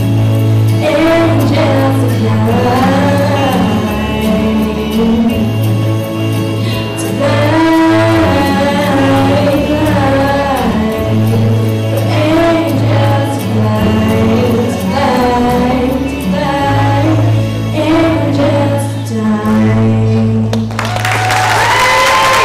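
A young female singer singing into a handheld microphone over a backing track with sustained bass notes. The song ends about 21 seconds in and audience applause begins.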